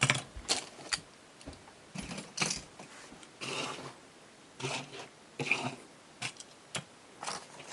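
Small diecast metal toy cars clinking and clattering as they are picked up and handled: a scattered series of short clicks and brief rattles.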